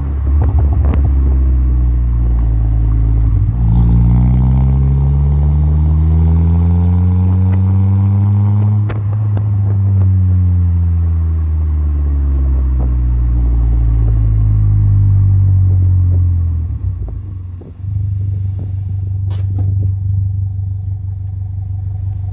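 Car engine heard through a Mugen Sport FI 90 aftermarket bass muffler, with a deep exhaust note. The revs climb for about five seconds, then the throttle comes off and the revs fall slowly for several seconds, settling into a steady low drone near the end.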